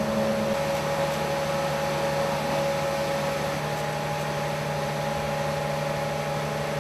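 A steady mechanical hum with a few low held tones underneath, without any break.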